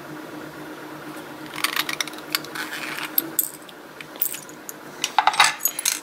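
Small metallic clicks and tinkles as a brass plug follower pushes the plug out of an Abus C83 pin-tumbler cylinder, with loose spool pins dropping out. The clicks come scattered in two clusters, one from about a second and a half in and another near the end.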